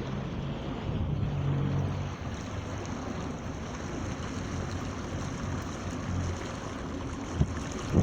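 Water washing along the hull of a Tropic 16 sailboat under way, with wind on the microphone and a low steady hum underneath; a brief knock sounds near the end.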